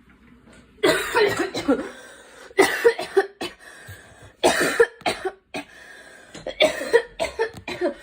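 A girl coughing in repeated fits: about four bouts of several coughs each, the first starting about a second in, with short pauses for breath between them.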